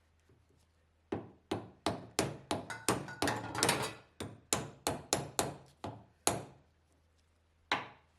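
A run of sharp hammer strikes, about three a second for some five seconds, with one more blow near the end.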